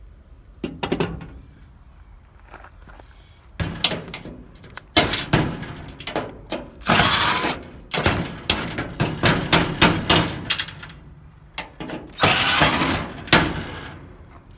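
Metal parts of a pool heater being knocked, pried and handled during teardown: a run of clanks and thunks, with two longer scraping, rattling stretches about seven and twelve seconds in.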